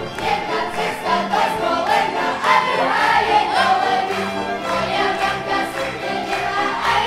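Group of children's voices singing a Slovak folk song, accompanied by a live folk band with fiddles, in a steady dance rhythm.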